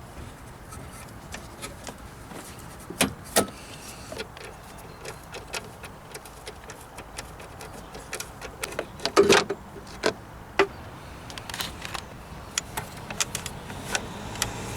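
Scattered clicks and metallic knocks of a hand tool and bolts as bolts are unscrewed behind a car headlight, a sharp pair about three seconds in and the loudest rattle about nine seconds in.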